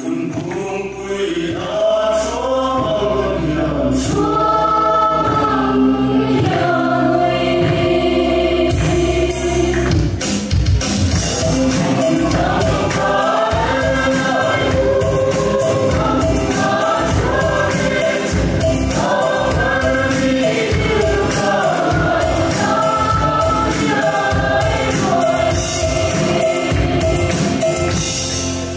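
A group singing a Chheih hla, the Mizo folk song that accompanies the Chheihlam dance, in chorus. About ten seconds in, a barrel drum and hand-clapping join in with a steady beat.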